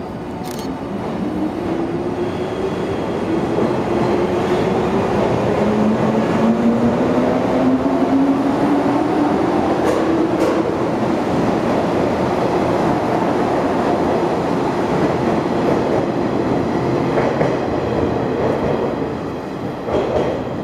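JNR 103 series electric train pulling out and accelerating past. Its traction motors give a whine that rises steadily in pitch over the first ten seconds or so, over the rumble of wheels on rail and a few sharp knocks. The sound dies away near the end as the last car clears.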